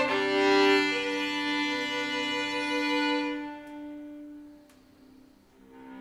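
Violin and cello duo holding sustained bowed notes that fade out about three and a half seconds in. After a brief near-silent pause, the cello starts again alone, more quietly.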